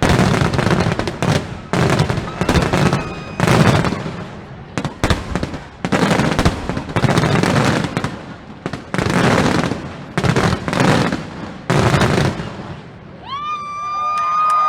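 Fireworks display: a rapid run of aerial shell bursts booming and crackling, one or two a second. The bursts ease off near the end, when a long held whistle-like tone comes in, followed by a shorter one.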